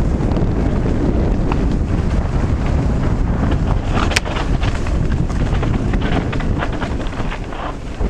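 Heavy wind buffeting the microphone as a mountain bike descends a dirt trail at speed. Over it come rattles and clicks from the bike on the rough ground, thickest in the second half, with one sharp click about four seconds in.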